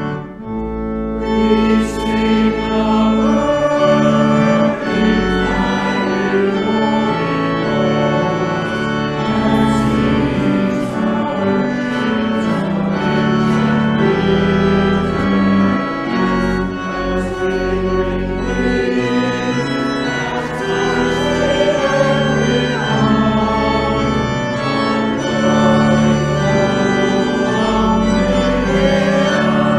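Church organ playing a slow piece in sustained chords that change every second or so.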